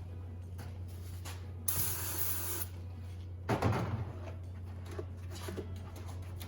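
Aerosol can of brake cleaner sprayed in a hissing burst of about a second into a Ford 8.8 differential housing to flush it out. A short, louder clatter follows about two seconds later.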